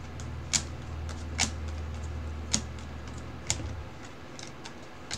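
Baseball trading cards being handled and flipped through by hand: four sharp card snaps about a second apart, with fainter ticks between, over a low hum that stops a little before the end.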